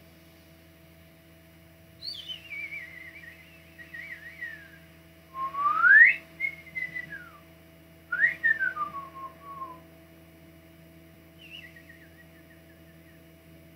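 A person whistling slow sliding notes: a wavering falling glide, then a loud rise and fall, another rise and long fall, and a faint falling note near the end. A steady electrical hum runs underneath.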